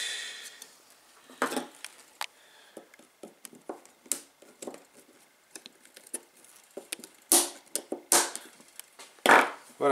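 Circlip pliers and a steel circlip clicking, scraping and tapping against the metal end of a rocket motor casing as the circlip is worked into its groove. Scattered small metallic clicks, with a few louder knocks near the end, the loudest about nine seconds in.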